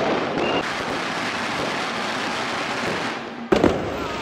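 A long string of firecrackers going off in a dense, continuous crackle, then two sharp, loud bangs about three and a half seconds in.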